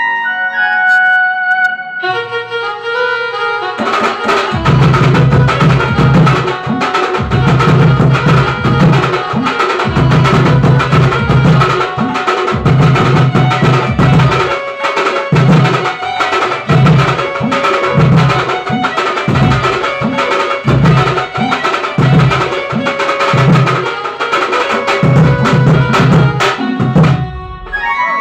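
Electronic keyboard playing a folk-style melody, joined about four seconds in by fast drumming with deep thuds. The drums stop near the end and the keyboard plays on alone.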